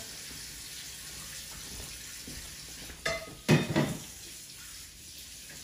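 Cutlery on dishes: a ringing clink of a fork against a plate or glass bowl about three seconds in, followed at once by a louder knock against the table, over a steady background hiss.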